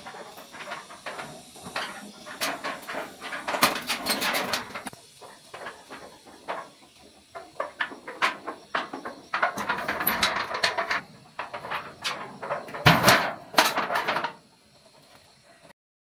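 Corrugated metal roofing sheets rattling and clattering as they are handled and carried, in a run of sharp clicks and noisy bursts, with the loudest clatter near the end.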